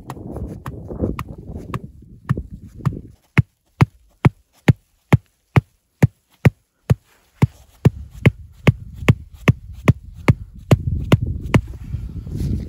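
A hatchet's back hammering a short wooden tent stake into snow-covered ground: about twenty sharp, evenly spaced knocks, roughly two and a half a second. They are preceded by a couple of seconds of rustling and a few scattered knocks.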